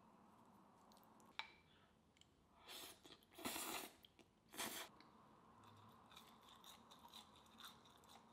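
Faint handling of a plate and fork at a wooden table: a light click about a second and a half in, then three short scraping, rustling noises around the middle as the plate is moved and set down, and a few soft ticks after.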